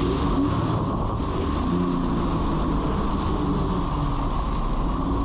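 Jet ski running at speed over choppy water: a steady engine drone that wavers slightly in pitch, mixed with wind on the microphone and the rush of water and spray.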